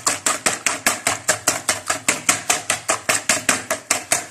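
Wire hand whisk beating a runny chocolate batter in a plastic bowl: quick, even strokes, about six a second.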